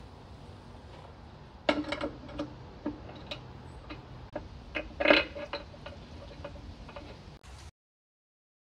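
Scattered light metallic clinks and taps from engine parts being handled and set in place on a cylinder head, a few with a brief ring, the loudest about five seconds in, over a low steady hum. The sound cuts off to silence near the end.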